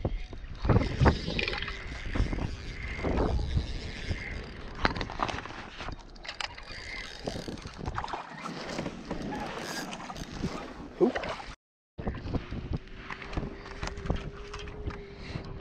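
Wind buffeting the microphone and choppy water slapping against a kayak hull, with knocks and splashes as a fish is reeled in and landed. A faint steady hum comes in near the end.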